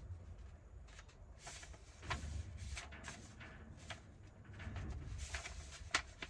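Paper being handled and positioned: a series of short dry rustles and light scrapes of paper sliding against paper, over a low steady rumble.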